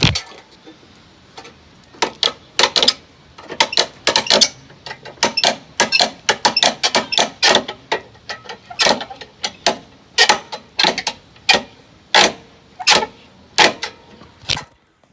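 Scissor jack being cranked by hand to lift a car: a long run of sharp metallic clicks and clanks, roughly one or two a second. There is a single louder knock right at the start.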